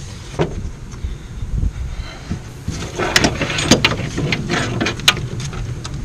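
A car's rear wiring loom being pulled out and handled: rustling of the wires with a run of light clicks and taps from the plastic connectors knocking against the bodywork, busier from about halfway through.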